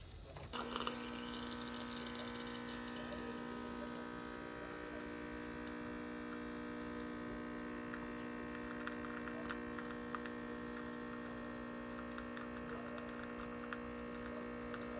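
Steady electrical hum made of several constant tones, like a running appliance or motor, starting abruptly about half a second in, with a few faint ticks.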